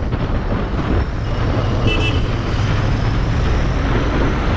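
Royal Enfield Interceptor 650's parallel-twin engine running steadily at cruising speed, with road noise. A brief high chirp sounds about two seconds in.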